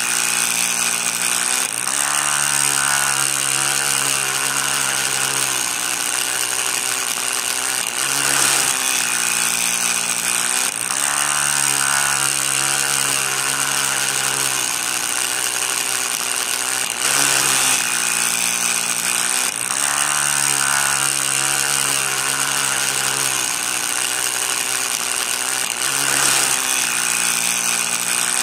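Small electric motor of a miniature saw disc running continuously with a high whine; its pitch sags and climbs back several times, every few seconds.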